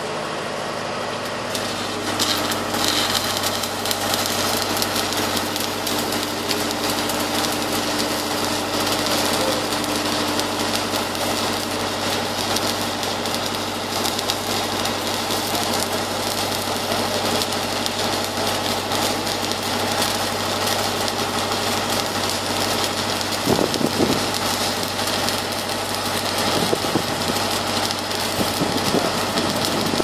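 Crackling, hissing arc of flux-cored arc welding on a steel pipe repair sleeve, starting about two seconds in, over a steady engine hum.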